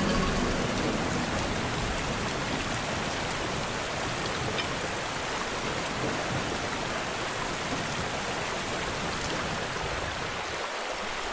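Steady rain falling, an even hiss of drops with no let-up.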